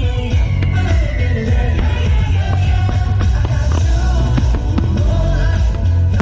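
Loud pop-rock music with singing over a heavy beat, played over a show's sound system.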